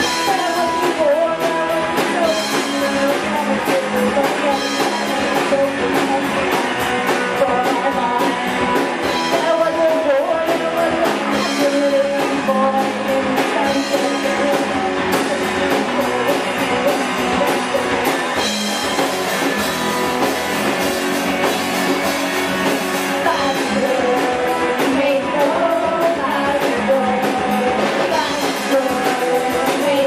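Indie rock band playing live: electric guitars, electric bass and drum kit, with a woman singing lead.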